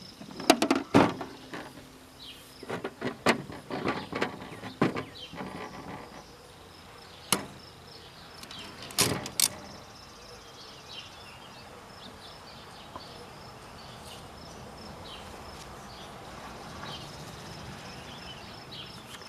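Irregular sharp clacks and knocks from a Brother-built Sears JP-1 manual typewriter being worked, some ringing briefly with a metallic rattle from the thin metal table it stands on. After about ten seconds they stop, leaving a faint steady high trill with chirps in the background.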